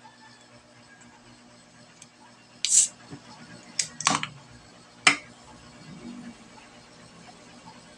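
Pull-tab of a canned guyabano drink being opened: a short hiss, then a few sharp clicks and snaps from the tab.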